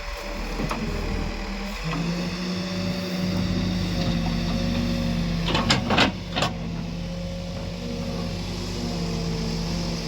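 Diesel engine of earth-moving machinery running steadily, its pitch stepping up slightly about two seconds in. Three sharp knocks stand out about six seconds in.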